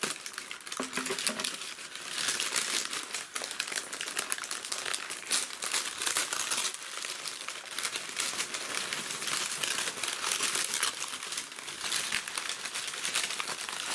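Brown kraft paper and white packing paper crinkling and rustling without a break as hands pull apart and unwrap a paper-wrapped parcel.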